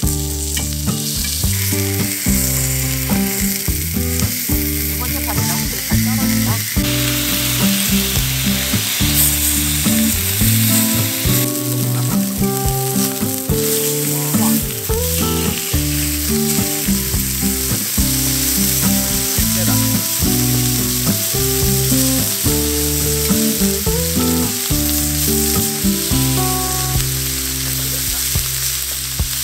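Pork belly (samgyeopsal) sizzling steadily as it fries on a grill, with background music over it.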